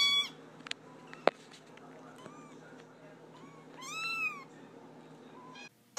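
Domestic cat meowing: one meow tailing off at the start and a longer meow rising and falling in pitch about four seconds in, with a sharp click between them.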